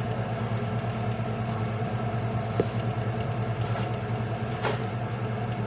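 A steady, even motor hum, with a brief faint click and a short noisy rustle partway through.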